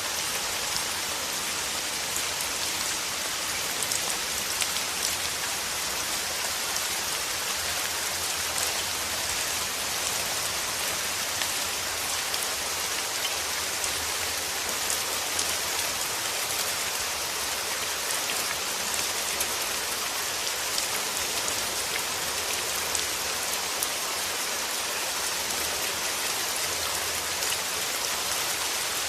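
Steady rain falling on a surface: a dense, even hiss with scattered small drop ticks.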